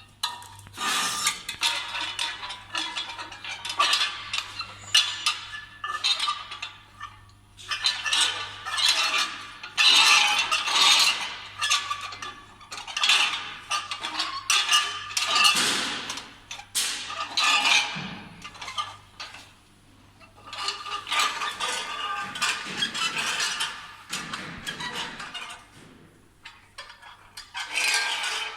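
CNC channel-letter bending machine working metal strip: irregular metallic clinks, clicks and rattles in clusters with short lulls, over a faint low steady hum.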